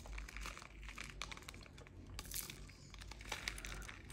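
Small resin diamond-painting drills rattling and clicking against a 3D-printed plastic tray as it is tilted and shaken to line them up in its rails: a faint, irregular scatter of quick ticks.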